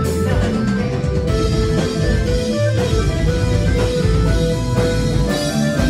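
Live rock band playing, with electric guitar to the fore over bass and drums.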